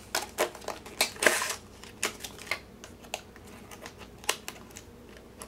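Hard clear plastic case of a diamond painting kit being pried open and handled: irregular plastic clicks and rustles, the loudest about a second in.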